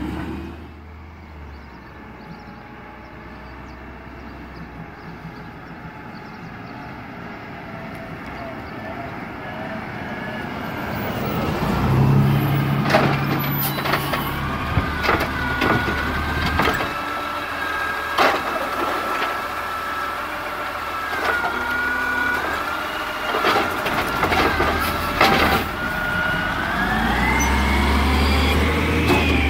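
Garbage truck working a pickup: its diesel engine revs up and down to drive the hydraulics, with a string of sharp metal clanks and bangs in the middle as a cart is handled and emptied. Near the end the engine revs up again with a rising pitch.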